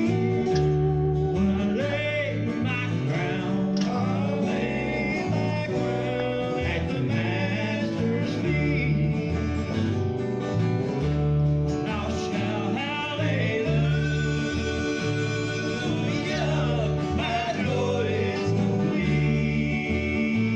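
Background country gospel music with guitar and a steady beat.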